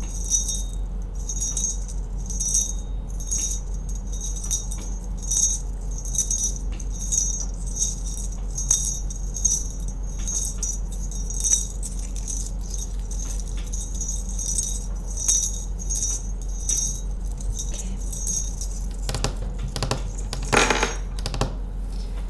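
Small silver jingle bells shaken in a repeated rhythm, about two jingles a second, over a steady low hum. The jingling stops after about eighteen seconds, and a brief lower rustling or handling sound follows.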